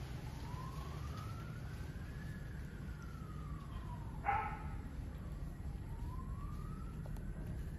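Emergency vehicle siren wailing, its single tone rising and falling slowly, about one full cycle every five seconds, over a steady low rumble. A brief sharp sound, the loudest moment, comes about four seconds in.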